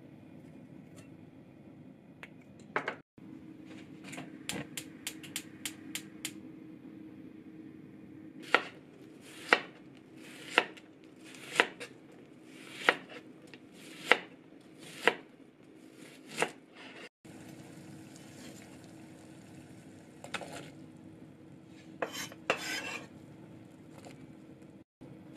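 Kitchen knife slicing an onion on a cutting board: a few quick light taps, then about eight firm chops roughly one a second. Near the end, a short clatter as the onion slices are dropped into a pot, over a faint steady hum.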